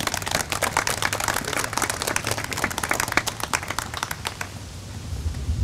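Audience clapping, the individual claps distinct, dying away about four and a half seconds in.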